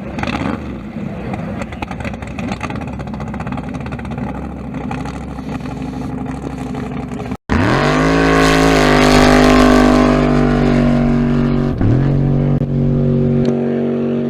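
A drag race car's engine revs up quickly and is held at steady high revs for several seconds, dropping briefly and picking straight back up about two-thirds of the way through. Before it, a rumble of engines runs for the first half.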